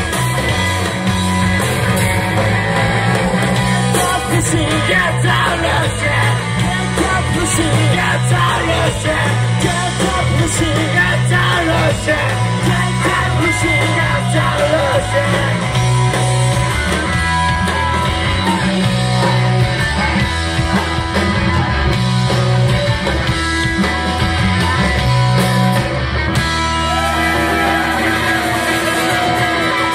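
A live rock band playing loud: electric guitars and drums, with a singer singing and shouting over them.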